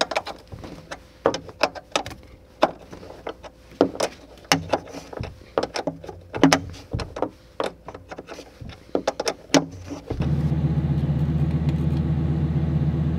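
Wrench working the RV slide-out's 9/16 adjustment bolt: irregular metal clicks and knocks. About ten seconds in, a steady mechanical hum starts abruptly.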